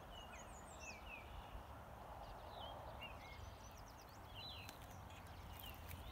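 Several birds chirping and singing in short, sliding notes over the steady rush of a shallow river. A few faint clicks come near the end.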